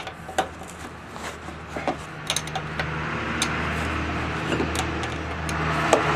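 Scattered clicks and light knocks as a loose rear turn signal is separated and taken off its mount, over a steady low hum. A hiss builds up from about halfway through.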